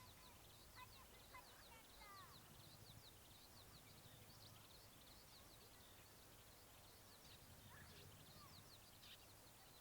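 Faint birdsong: one bird repeats quick, high, down-slurred chirps several times a second, and another gives a few lower calls in the first couple of seconds and again near the end. A low hum comes and goes underneath.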